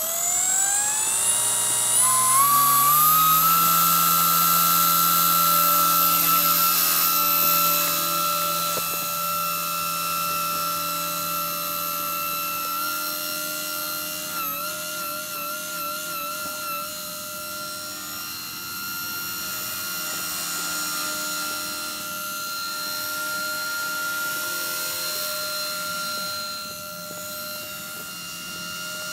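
Micro electric RC helicopter spooling up: the motor whine rises in pitch in steps over the first few seconds and then holds steady at a high pitch along with the rotor noise. The pitch wavers briefly in the middle, and the sound grows somewhat fainter later.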